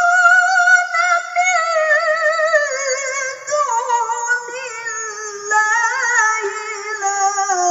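A woman reciting the Qur'an in the melodic tilawah style, unaccompanied. Her voice holds a long, high, ornamented phrase and then slides gradually down in pitch in steps, with quick trills along the way.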